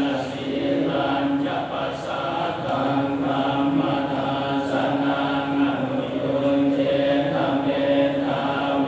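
Buddhist chanting: voices intoning in long held tones on a steady pitch, shifting pitch every second or so.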